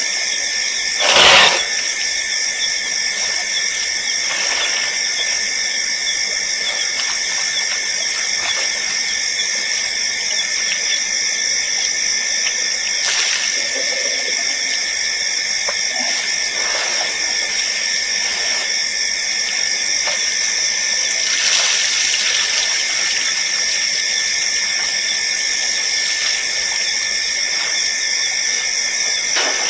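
Steady high-pitched chorus of night insects, shimmering without a break. A brief loud knock sounds about a second in.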